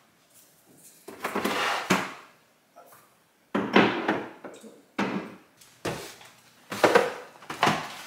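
Groceries being put away in a kitchen cabinet: cans, jars and bottles knocked and set down on the shelves in a series of about five separate clunks and rattles.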